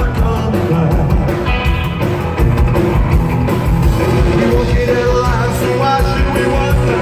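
Rockabilly band playing live, loud and steady, with electric guitar, drums and singing.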